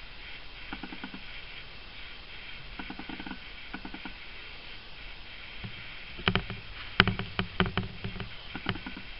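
Irregular light clicks and knocks over a faint steady hiss. A few faint ones come early, and a louder, quicker run of them starts about six seconds in.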